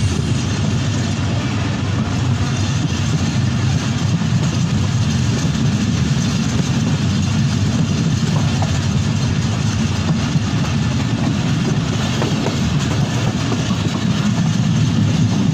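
Passenger train running steadily along the track, a continuous low rumble of wheels and rushing air heard from inside the coach.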